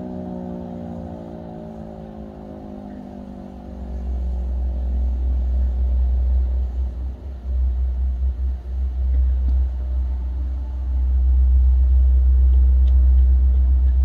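GCS Type 341 outdoor warning siren winding down, its tones sliding lower together and fading out over the first few seconds. From about four seconds in, a loud, uneven low rumble takes over.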